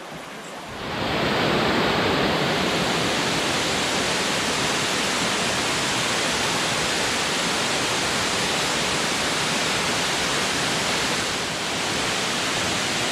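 Waterfall: a loud, steady rush of falling water that swells in over about the first second.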